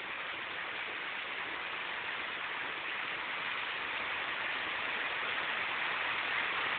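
Heavy rain falling steadily on leaves and potted plants, a dense, even hiss that slowly grows a little louder.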